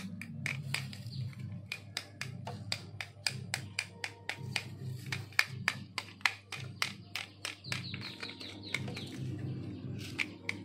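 Small plastic toy cars clicking and clacking as they are handled and pressed in the hands, a rapid, irregular run of sharp clicks, over background music.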